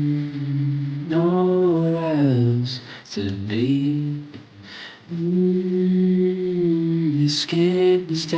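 Song vocals: a singer holding long, wordless notes that bend and slide down in pitch, with short breaks between them.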